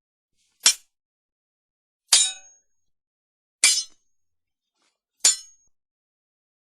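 Four sword clashes, metal blade striking metal blade, each a sharp clang with a short ringing tail. They come about a second and a half apart: near the start, about two seconds in, in the middle, and near the end.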